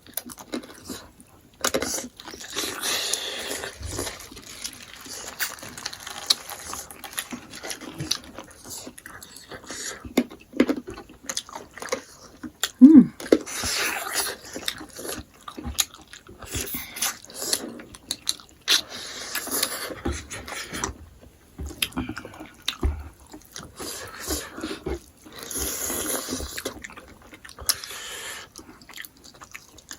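Close-up chewing and mouth sounds of people eating: irregular smacks, crunches and clicks. A brief voiced hum comes about halfway through.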